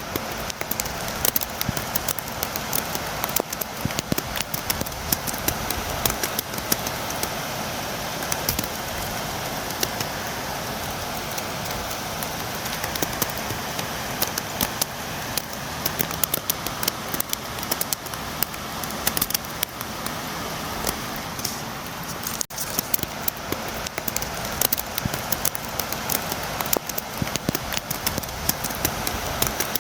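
Steady rain: a continuous hiss with many sharp drops tapping close by, as of rain striking a windowpane.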